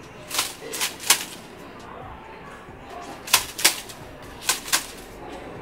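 Bundle of dried palm-frond strips swished sharply through the air, about seven quick swishes in three short bursts.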